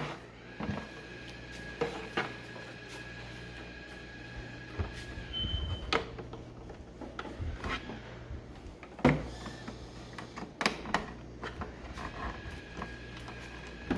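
Scattered sharp plastic knocks and clicks as the Roomba i7+ charging dock and its power cord are handled, with a few louder knocks about 9 to 11 seconds in, over a low steady hum.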